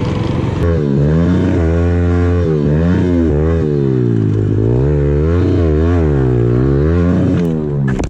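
A pit bike's 110cc single-cylinder four-stroke engine being ridden hard, its revs climbing and falling again and again as the throttle is opened and closed. The sound drops off abruptly near the end.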